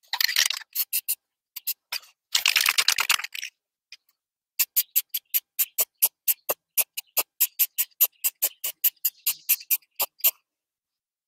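Aerosol spray-paint can: two short hisses of spraying, then the mixing ball rattling in the can as it is shaken, about five sharp clicks a second for several seconds.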